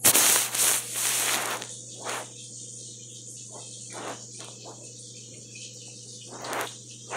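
Handling noise from a phone's microphone as the phone is moved about and covered: loud rubbing and rustling in the first second or so, then a few soft bumps. Under it runs a steady high hiss and a low hum.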